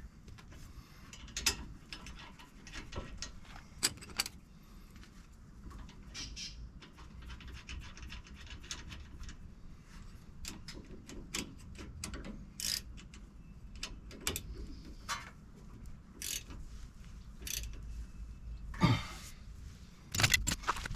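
Scattered clicks, clinks and knocks of hand tools and brake parts being handled, with a cluster of them near the end.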